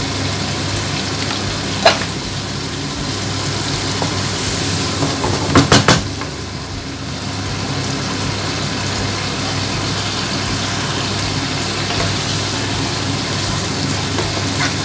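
Onion, ginger-garlic and spice masala sizzling in oil in a nonstick frying pan while it is stirred with a wooden spatula, being fried down before the chicken is added. The spatula knocks against the pan once about two seconds in and a few times in quick succession around six seconds in.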